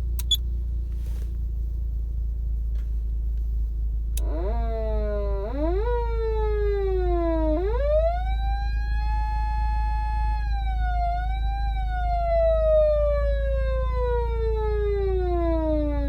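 Patlite SAP500BZ electronic siren amplifier being tested. After a switch click, the siren tone starts about four seconds in. Twice it jumps up and slowly sinks, then it climbs to a held pitch, wavers briefly and falls slowly away. A steady low hum sits underneath.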